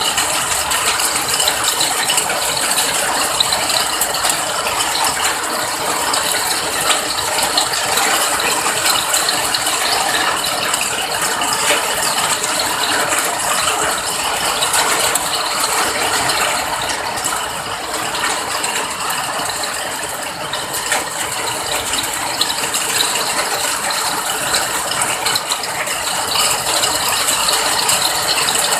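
Steady rain: a dense, even patter of many small drops, with no let-up.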